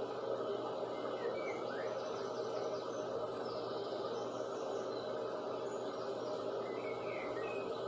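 Faint, scattered bird chirps and short trills over a steady background noise.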